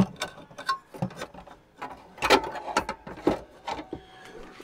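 Heater blower motor being worked into its housing under a truck dash: irregular clicks, knocks and scrapes of the motor against the housing. The sharpest click comes right at the start, and a run of louder knocks follows about two to three seconds in.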